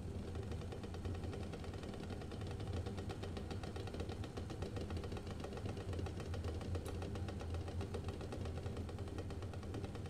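A stainless steel saucepan of water with eggs in it at a rolling boil: steady bubbling with a dense patter of small ticks and knocks, over a steady low hum.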